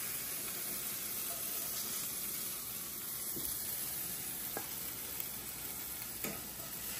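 Chicken pieces frying in a hot skillet, a steady sizzle of hot oil, with a few light clicks as a spatula works in the pan.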